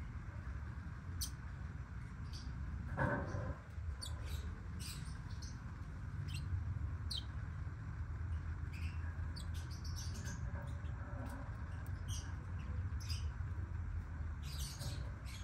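Lovebirds chirping: short, high-pitched squeaks come irregularly throughout over a steady low hum. A brief louder rustling noise comes about three seconds in.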